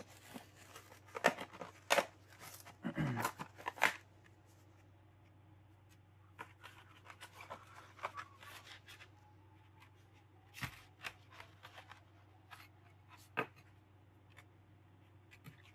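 Hot Wheels two-pack blister packaging, plastic shell on a cardboard card, being opened by hand. There is a dense run of crackles and clicks for about the first four seconds, then scattered single clicks.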